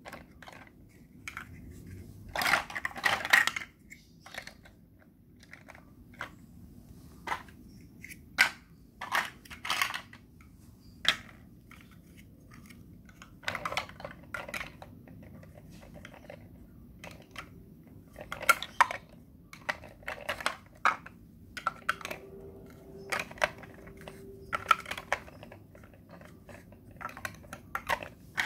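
Large plastic Mega Bloks building blocks being handled: irregular clicks and short clatters as blocks are pressed onto a toy train base and picked from a pile, with a denser rattle of blocks knocking together a few seconds in.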